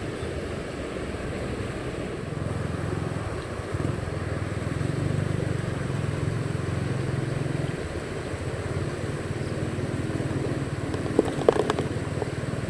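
Steady low engine rumble of passing road traffic, swelling about two seconds in and holding, over a hiss of wind. Two sharp clicks near the end.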